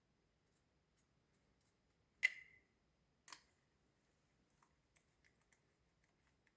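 Two sharp clicks of tools and parts being handled, about a second apart, the first louder with a brief ring, followed by a few faint small ticks.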